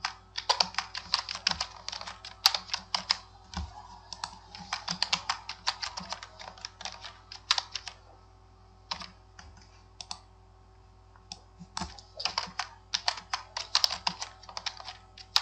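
Typing on a computer keyboard: quick runs of keystroke clicks broken by short pauses, with a longer lull about halfway through.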